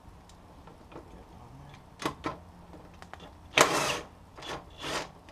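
Cordless impact wrench on the 22 mm front axle nut of a Honda CBR600 F4, run in five short bursts to break the nut loose. The longest and loudest burst, about half a second, comes a little past halfway.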